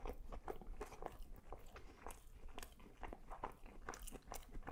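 Close-miked chewing of a mouthful of falafel waffle with lamb and cheese: soft, irregular crunches and mouth clicks, a few each second.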